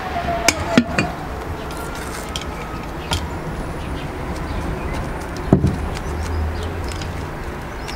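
Steady low outdoor rumble, with a few sharp clicks and a knock about five and a half seconds in, as hands handle and tear open a small paper sachet over a glass bowl.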